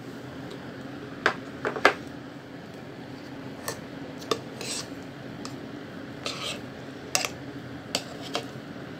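A metal spoon clinking and knocking against a plastic chopper bowl of blended banana ice cream as the bowl is handled and tipped out, in scattered sharp clinks with the loudest pair just under two seconds in, over a low steady hum.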